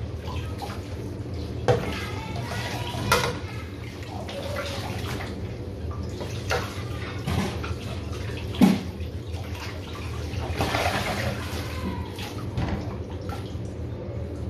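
Kitchen tap running into a sink while dishes are washed by hand, with several sharp clinks and knocks of crockery and pans, the loudest a little past halfway. A steady low hum runs underneath.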